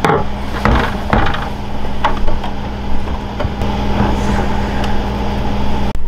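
A steady low mechanical hum, with a few knocks and clatters in the first second or so.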